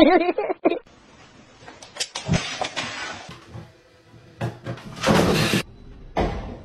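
A kitten meowing with a wavering, warbling pitch, cutting off under a second in; then scattered knocks and rustling, a louder noisy clatter about five seconds in, and a thump near the end.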